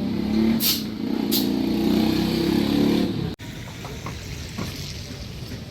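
A small two-wheeler engine running close by. It stops abruptly about three seconds in, giving way to quieter street noise with a few light clicks.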